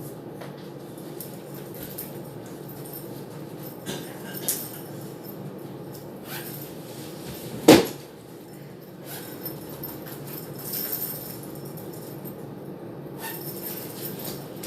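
Handling noise: a few scattered knocks and clicks of objects being moved, one sharp knock near the middle louder than the rest, over a steady background hiss.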